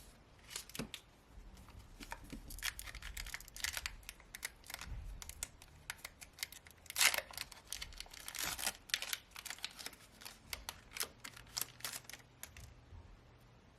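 Foil Pokémon booster-pack wrapper crinkling as it is opened: a busy run of crackles and short rustles, loudest about seven seconds in, dying away near the end.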